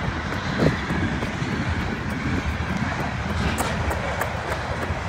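Loaded coal train rolling past: a steady rumble of freight cars on the rails, with quick ticks of footsteps on gravel.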